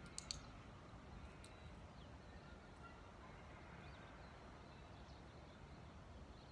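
Near silence: faint outdoor ambience with a steady low rumble, two quick sharp clicks a fraction of a second in, and a few faint high chirps.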